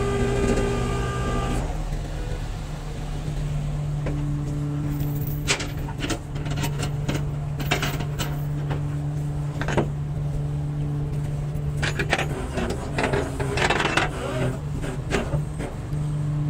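Tow truck engine running steadily, with a higher whine that cuts off about a second and a half in. From about five seconds in come scattered metallic clinks and rattles of tie-down hooks and straps as the car is secured on the flatbed.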